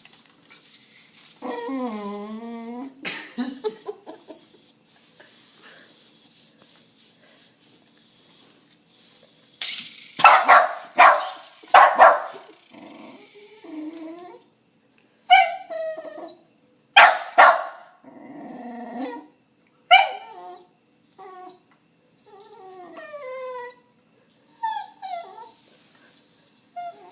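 A dog barking and yipping in loud short bursts, with a wavering howl-like call near the start. A thin, high wavering whine sounds in between.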